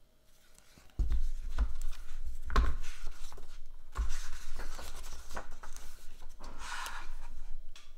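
Hardcover picture book being handled and opened close to the microphone: paper and cover rustling and rubbing, with several low bumps from the handling.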